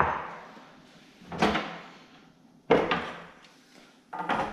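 Plastic boilie rolling tables being set down and shifted on a worktop: three sharp knocks about a second and a half apart, each trailing off quickly.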